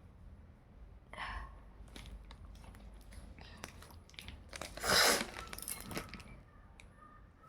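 A person sneezing once, loud and sudden, about five seconds in. A shorter breathy vocal sound comes about a second in, with small clicks and rustles in between.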